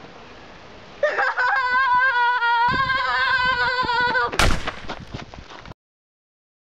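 A boy screams one long, wavering scream for about three seconds, then a single sharp gunshot-like bang, and the sound cuts off suddenly to silence near the end.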